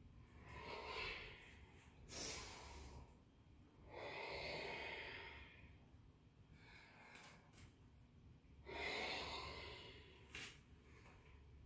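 A woman breathing hard through her nose and mouth as she moves through a yoga flow: three long noisy exhalations about four seconds apart, with two short sharp sounds between them.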